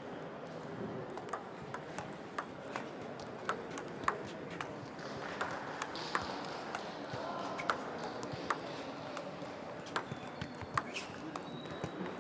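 Table tennis balls clicking off bats and tables in an irregular series of sharp ticks, some louder and some fainter, in a reverberant sports hall with a low murmur of voices.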